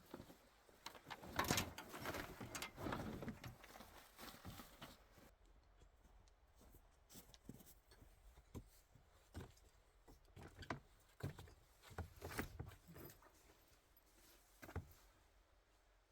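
Faint rustling for the first few seconds, then scattered irregular knocks and clicks, as of gear being handled and set down in a small enclosed space.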